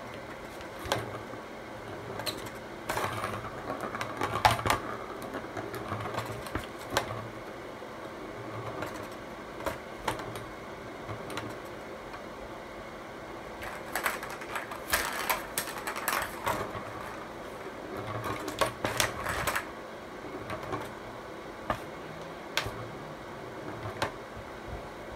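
A ball rattling and clicking around a clear plastic circular track toy as a kitten bats at it, in several bursts of quick clicks with quieter single taps between.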